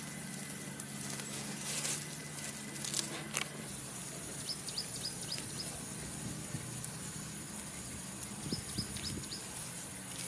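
Rural outdoor ambience: a steady high insect drone, with two quick runs of high chirps, about five each, a few seconds apart.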